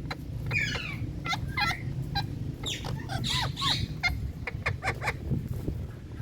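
Indian ringneck parakeets calling: a rapid series of short, harsh squawks and chatters, many of them sweeping down in pitch, over a steady low background hum.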